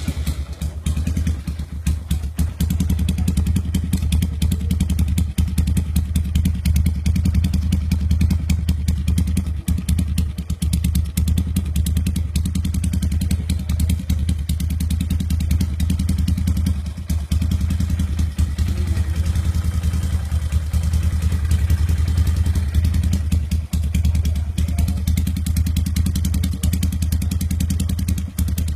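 Motorcycle with an aftermarket free-flowing exhaust running at a steady idle: a loud, deep, rapid pulsing burble.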